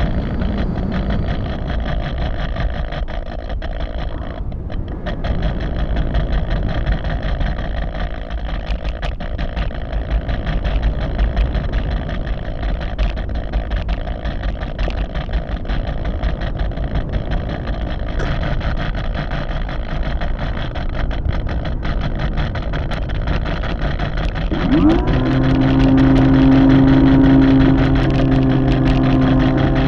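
Airflow rushing over the microphone of an RC airplane's onboard camera in flight. About 25 seconds in, the plane's motor comes in loud with a short rise in pitch, then holds a steady tone.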